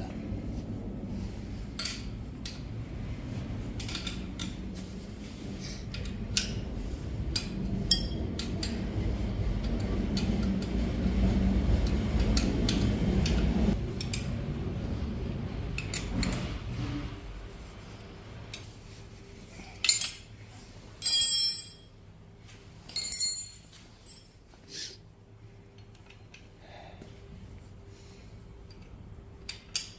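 Metal tools and parts knocking and clinking during disassembly of an electric dirt bike: low rumbling handling noise with scattered clicks, then a few loud, ringing metallic clinks a little past two-thirds of the way through.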